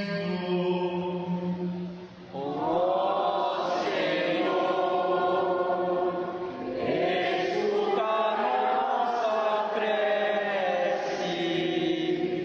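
Liturgical chant: a sung prayer in long, slow phrases with gliding pitch, briefly breaking about two and seven seconds in.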